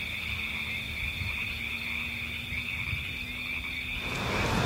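A steady, high-pitched night chorus of calling animals, holding two even pitches, with a rise in background hiss about four seconds in.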